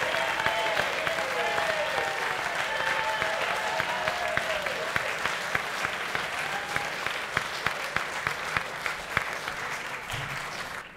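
Audience applauding after a live rock song, with cheering voices over the clapping for the first few seconds. The applause then thins to scattered individual claps and fades out near the end.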